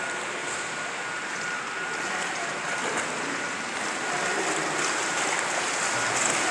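Splashing of a child's flipper kicks at the surface of an indoor swimming pool, over a steady wash of pool water noise; the splashing grows louder in the last couple of seconds as the swimmer comes close.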